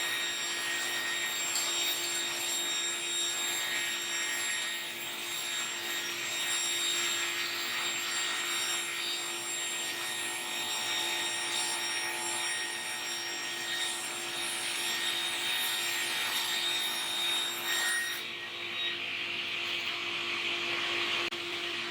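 Power tool cutting into timber, a steady high whine over a rasping wood-cutting noise, with a dust-extractor-like hum running under it. About 18 seconds in the whine stops and a hissier sound carries on over the hum.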